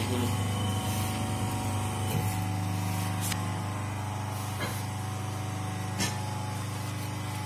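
Automatic injection molding machine for water-gallon caps running with a steady low hum from its motor and hydraulics, with a few sharp clicks.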